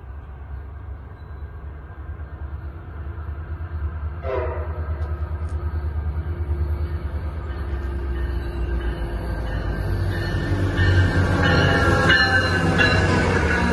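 MARC commuter train's diesel locomotive approaching, its engine rumble growing steadily louder. A horn sounds about four seconds in. The engine is loudest near the end as the locomotive pulls alongside.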